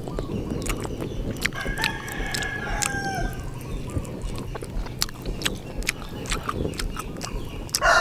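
A rooster crows once, starting about one and a half seconds in, a held call that drops in pitch at the end. Under it are frequent small wet clicks and smacks of someone chewing meat off a boiled oxtail bone, and a louder sound begins right at the end.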